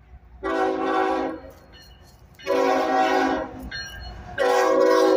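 Air horn of a CSX GE ES44AC locomotive sounding three separate blasts of about a second each, a chord of several notes, as the freight train approaches. The third blast is still going at the end.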